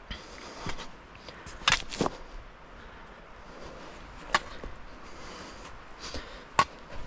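Footsteps of someone walking through winter woods, with about five sharp, irregularly spaced snaps and cracks underfoot. The loudest come about two seconds in and near the end.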